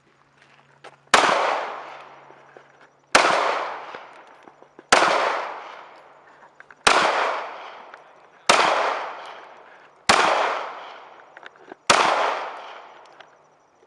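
Seven single gunshots fired at a steady, deliberate pace, about one every one and a half to two seconds, each sharp report followed by a ringing echo that dies away over about a second.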